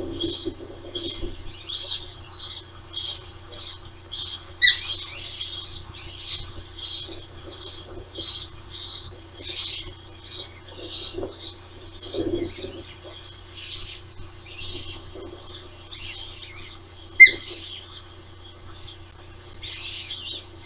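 Ospreys at the nest calling: a steady run of short, high chirps, about two or three a second, with two louder, sharp calls that drop in pitch about five seconds in and again near 17 seconds.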